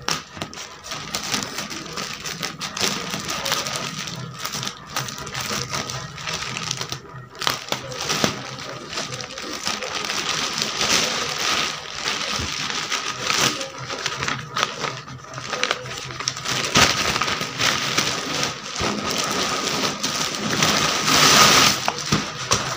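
Plastic courier mailer crinkling and rustling as it is cut open with a utility knife and torn apart, loudest near the end as the bag packed inside is pulled out of it.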